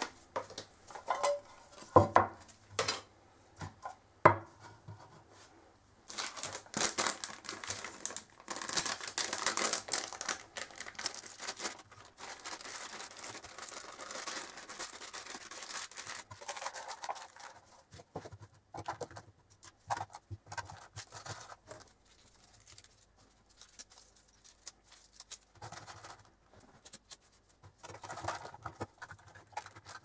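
Hands in nitrile gloves handling and packing small items into a metal tin: a few sharp knocks and clicks at the start, then about ten seconds of crinkling plastic and paper packets, then scattered light taps and clicks.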